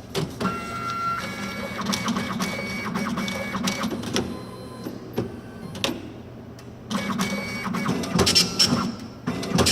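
Hitachi automatic passbook entry machine at work, feeding and printing a passbook. Motors whir and the print mechanism chatters in rapid clicks. It runs quieter for a stretch in the middle, then clicks louder near the end.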